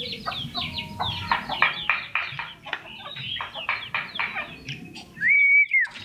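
Common iora (cipoh) singing a fast, busy chatter of short notes. Near the end comes one long, loud whistled note that rises, holds and drops away.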